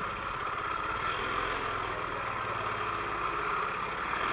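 A vehicle engine running steadily, with an even, fast pulse.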